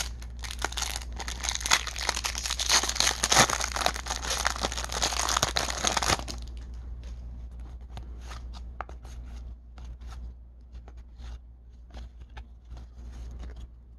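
A baseball card pack's wrapper being torn open and crinkled for about six seconds. After that the cards tick and rustle against each other as they are thumbed through one by one.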